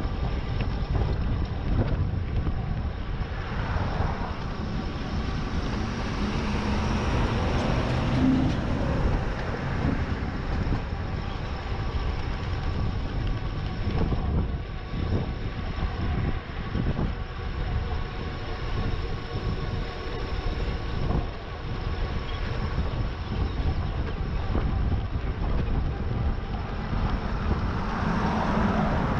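Wind rushing over the microphone and road rumble while riding an e-bike at speed, with a passing vehicle about four seconds in and another near the end.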